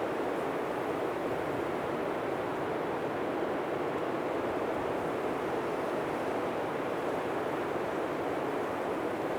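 Blizzard wind blowing steadily, an even rushing noise with no gusts or breaks.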